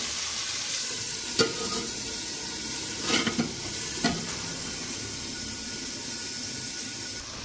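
Chicken pieces sizzling in a hot aluminium kadai, with a few short metal knocks as the domed lid is set on the pan.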